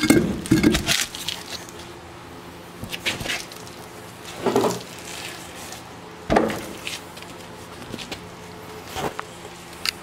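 A few scattered knocks and clunks over a low steady background. A quick clatter of several knocks comes in the first second, then single knocks every second or two.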